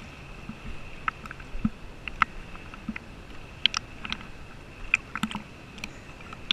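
Small lake waves lapping and slapping against a camera housing floating at the water surface: irregular light clicks and knocks over a faint steady high whine.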